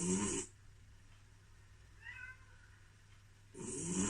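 Domestic cat snoring in its sleep: one snore at the start and another near the end. About halfway through comes a short, faint, high mew as it dreams.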